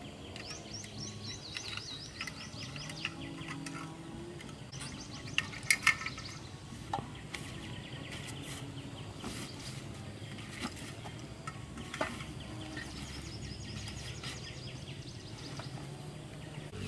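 Birds chirping in quick series of short rising notes, over a steady outdoor background. A few sharp clicks and knocks, the loudest about six seconds in and another near twelve seconds, as camping gear is handled.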